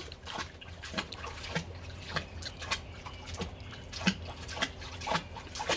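A small child's hands slapping and patting the water of a kiddie pool: irregular small splashes and drips, a few a second.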